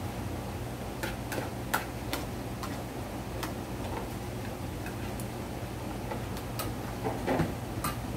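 A metal spoon clinking and scraping against a plate while eating, in sharp irregular clicks, with a louder clatter about seven seconds in. A low steady hum runs underneath.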